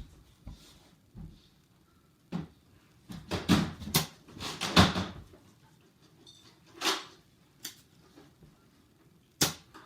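Scattered knocks and bangs in a small room: one, then a quick cluster about three to five seconds in, then single ones near seven and again near the end.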